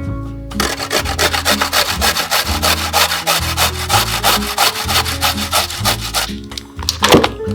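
Food being grated on a hand grater: fast, even rasping strokes, about seven a second, pausing briefly twice, over background music with a low bass line.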